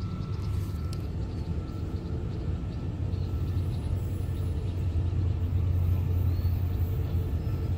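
A steady, low diesel engine rumble from a train out of sight, growing a little louder towards the end.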